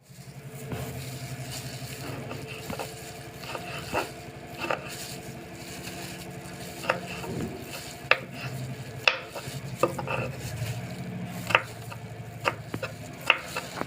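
Spoon stirring and mixing food in a bowl, with about ten sharp, irregular clinks of the spoon against the bowl over a steady low hum.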